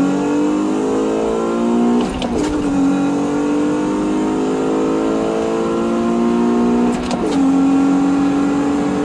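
Acura TL SH-AWD's V6 engine at full throttle, its pitch climbing steadily through the revs, with two upshifts about 2 and 7 seconds in, where the pitch drops sharply with a brief click. It pulls without engine knock on octane-boosted fuel.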